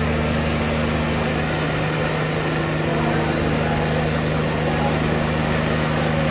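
John Deere 5310 tractor diesel engines running steadily at constant speed, a low, even drone.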